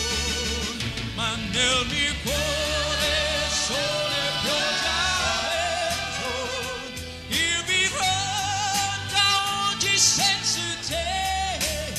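Male pop singer singing with vibrato over a full orchestra, joined by a mixed backing chorus.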